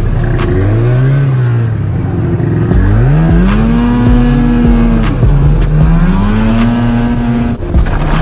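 Snowmobile engine revving as the machine rides along the trail: the pitch climbs and holds, drops back, climbs again and falls away near the end.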